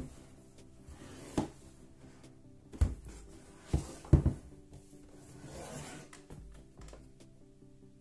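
A shrink-wrapped cardboard board-game box handled and turned in the hands: several knocks and rubs of fingers and palms on the box, over soft background music.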